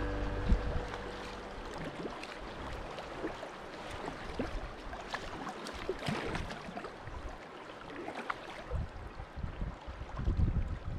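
Kayak paddling on a river: paddle blades dipping and splashing unevenly, water dripping off them, and scattered knocks, with a sharp knock about half a second in. Background music fades out at the very start.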